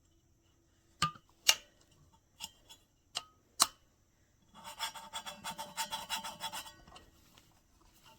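Stanley Quick Flip GO stainless steel water bottle being handled: a handful of sharp clicks from its lid and button, then about two seconds of dense rattling scrape.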